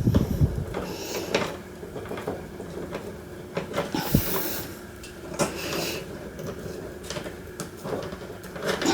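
Hands working electrical wiring: scattered clicks, knocks and rustles of wire and fittings being handled, with a sharper knock about four seconds in.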